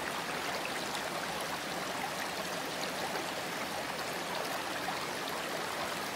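Steady running water of a stream, with small splashes and droplet ticks scattered through it.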